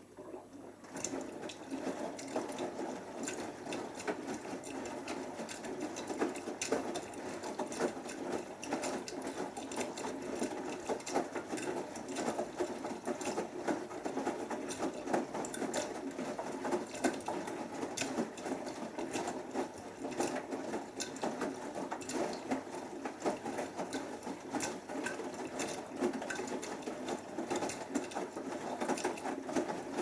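Beko WMB81445L front-loading washing machine tumbling its drum in the main wash: the motor turning the drum, with wet laundry churning and splashing in the raised water level. It goes as a steady churning with constant small knocks and patter, starting up at the very start.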